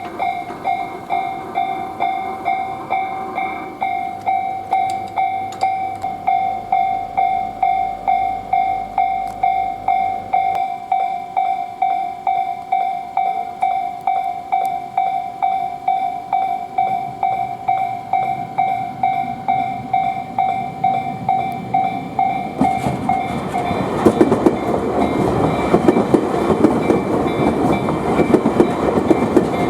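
Japanese level-crossing warning bell ringing, a steady clang of about one and a half strokes a second, signalling an approaching train. About 23 seconds in, a Tobu Noda Line electric train passes the crossing, its rising rumble and wheel clatter covering the bell.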